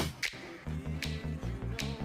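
Background music with a steady beat and a pulsing bass line. It opens with a loud sharp crack, then the music cuts out for about half a second and comes back.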